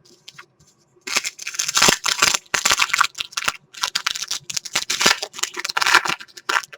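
Trading cards being flipped through by hand: card stock sliding and snapping against card in a rapid, uneven rustle with quick clicks, starting about a second in.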